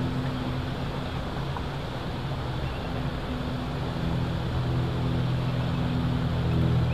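A steady low engine drone with a constant rushing noise behind it; the hum comes and goes slightly in strength.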